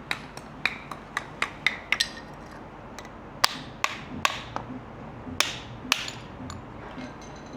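Hammer striking metal during suspension work: a run of quick light taps, about four a second, then about six heavier, spaced blows, each with a short ring.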